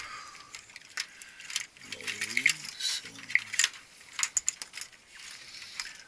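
Irregular sharp clicks and light metallic rattles of wires and spade connectors being handled and pushed onto a water-source heat pump's control board.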